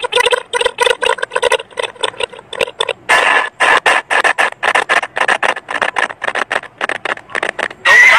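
Layered cartoon soundtracks from many clips mixed together and chopped into rapid stuttering bursts, about five a second. There is a longer unbroken noisy burst about three seconds in, and a steady high tone near the end.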